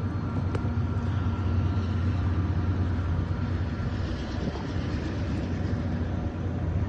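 A passing train, heard as a steady low rumble.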